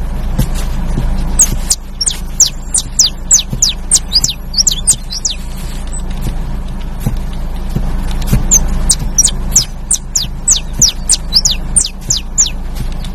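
Saffron finch (canário-da-terra) singing two bursts of quick, high, downward-sweeping notes, about four or five a second, with a pause between them. A steady low hum runs underneath.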